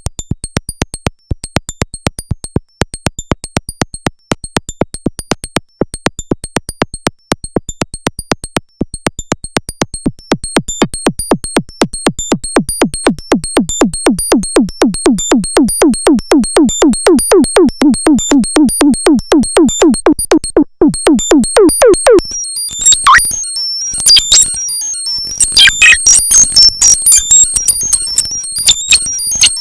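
Arturia MicroBrute analog synthesizer running a fast sequence of short, clicky notes, with a pitched tone rising and wavering beneath them. About 22 seconds in this breaks off into high, chirpy chiptune-like bleeps.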